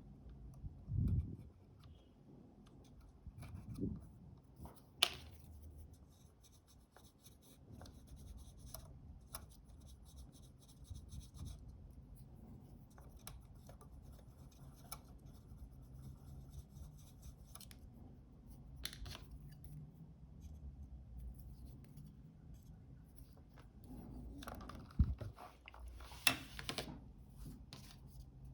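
Faint scratching and rubbing of small tools working on the sticky, glue-coated flex cable inside a Fuji GA645 camera as it is cleaned, with scattered sharp clicks and taps, the loudest about a second in, around four to five seconds, and near the end.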